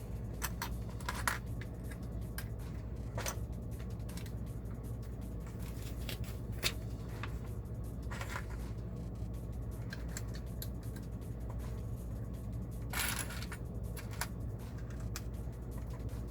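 Small plastic LEGO pieces clicking and tapping as they are handled, sorted from a pile and pressed together, in scattered single clicks, with a short rustle about thirteen seconds in, over a steady low hum.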